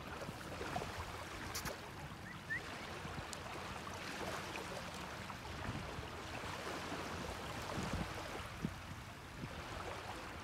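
Small waves washing and lapping steadily on a shallow beach, with a few faint clicks over it.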